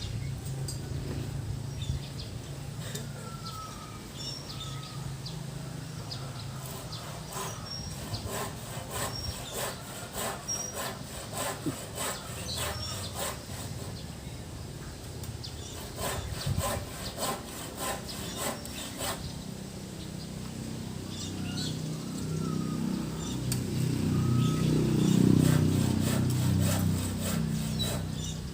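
Wood being sawn: scraping strokes with clusters of sharp ticks, growing louder near the end.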